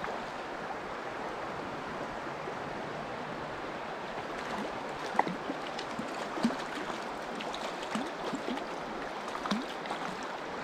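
Shallow trout stream flowing over rocks, a steady rushing of water. In the second half come scattered small splashes and gurgles, as a hooked trout thrashes at the surface and is brought to the net.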